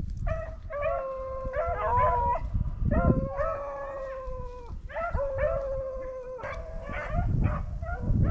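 Pack of rabbit-hunting dogs baying in long, drawn-out notes as they run a rabbit, at least two voices overlapping, with a pause in the middle before they start up again. Low wind rumble on the microphone underneath.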